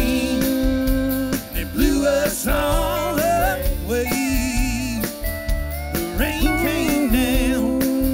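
Country-rock band playing an instrumental passage: drum kit and electric bass under a lead line that slides and bends between notes.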